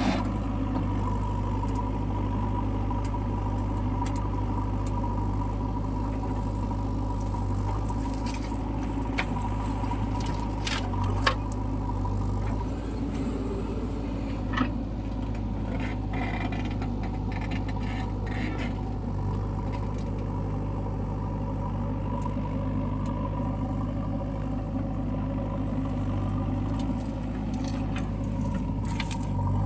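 JCB backhoe loader's diesel engine running steadily while loading mud, with scattered metallic clanks and scrapes between about eight and eighteen seconds in.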